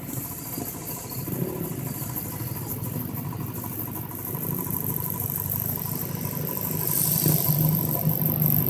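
Jeep engine running steadily at a low idle, getting somewhat louder about seven seconds in.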